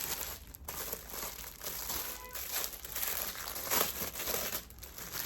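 Packaging crinkling and rustling in irregular handfuls as a newly bought skincare purse is unwrapped and handled.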